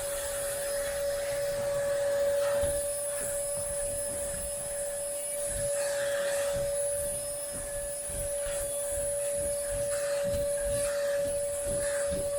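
Vacuum cleaner running with a steady whine while it is worked back and forth over fabric couch upholstery, picking up dog hair. Irregular rubbing and bumping comes from the nozzle as it moves over the cushions.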